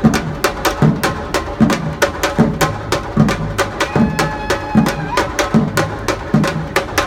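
Samba-reggae drum band playing a steady groove: deep surdo bass drums strike about every 0.8 s under quick, sharp snare and repinique strokes.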